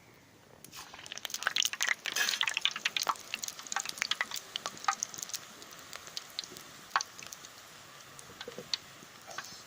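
Murukku dough frying in hot oil: a dense run of crackling and popping from about a second in, thinning out to scattered single pops.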